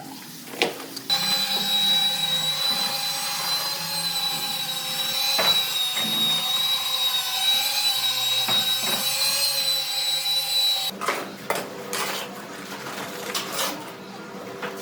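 A power tool running steadily with a high-pitched motor whine for about ten seconds, then stopping, followed by a few scattered knocks.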